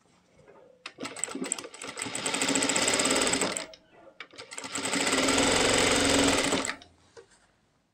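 JACK industrial single-needle lockstitch sewing machine stitching through two layered collar pieces in two runs with a short pause between. Each run speeds up to a steady, fast stitching rattle, then stops.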